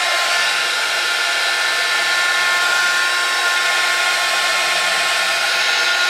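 Embossing heat gun running, blowing hot air to dry wet watercolour paint: a steady rush of air with a steady motor whine.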